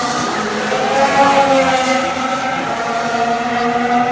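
Formula One cars' 1.6-litre V6 turbo-hybrid engines running on track at speed, their pitch rising and falling gently.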